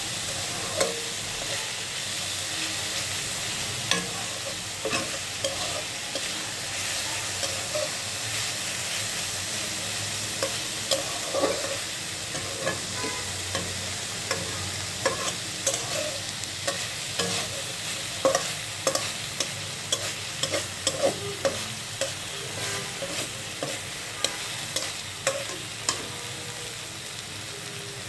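Modhu shak greens frying and sizzling in a pan while a spatula stirs them, scraping and knocking against the pan in frequent short clicks. The knocks grow busier in the second half.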